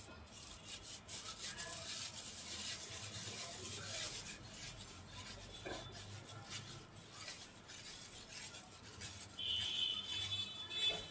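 Fingers rubbing crushed naphthalene mothballs against the fine mesh of a stainless steel strainer, a continuous scratchy rasping as the crystals are pushed through into powder. A louder, squeakier scrape comes near the end.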